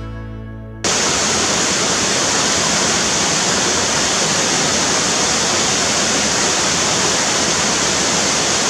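A steady rush of flowing water starts abruptly about a second in, right after a music track fades out.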